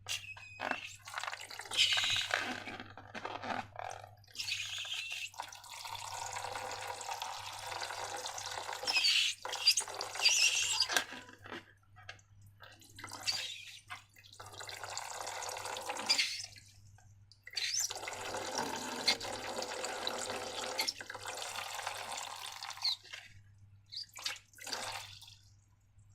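Wet, liquid sounds of slime being poured and worked: two long stretches of steady sloshing noise several seconds each, with shorter crackly squelches and brief pauses between them.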